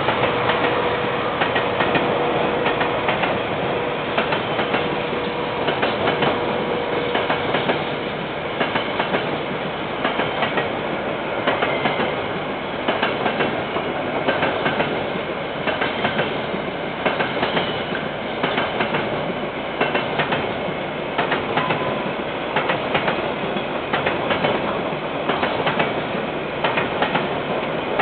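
KiwiRail freight train's container wagons rolling past, their wheels clicking over the rail joints in a regular clickety-clack. A steady whine fades out over the first several seconds.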